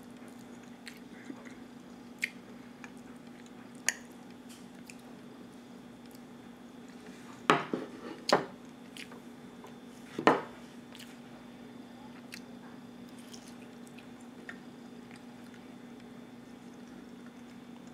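Close-up eating sounds: quiet chewing of scrambled eggs and sausage, with faint clicks and three louder short sharp sounds about halfway through, over a steady low hum.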